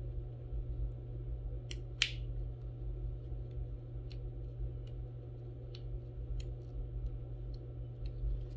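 Small clicks and crinkles of fingers picking at the corner of a sheet of heat transfer paper, working to separate the printed layer from its backing, with one sharper click about two seconds in. A steady low hum runs underneath.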